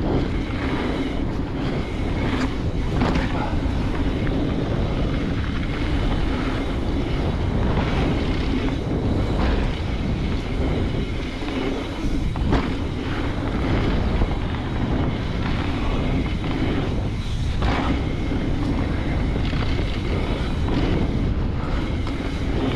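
Wind rushing over the microphone and tyre rumble from a full-suspension mountain bike rolling fast down a dirt trail, with scattered short knocks and clicks from rocks and the bike.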